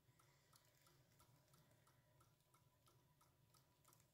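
Near silence with a faint, regular ticking about three times a second.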